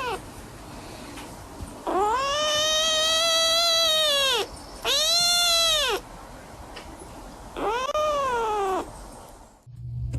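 A cat yowling in three long, drawn-out meows, each rising and then falling in pitch; the first is the longest, over two seconds.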